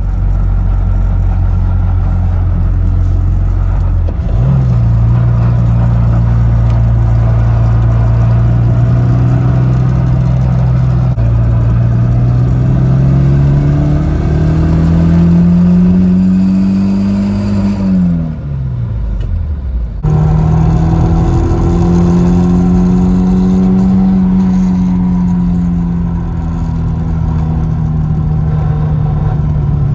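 BMW E36's engine running under way: its note holds steady, climbs slowly, then drops sharply about two-thirds in. After a brief break it comes back and eases down while cruising.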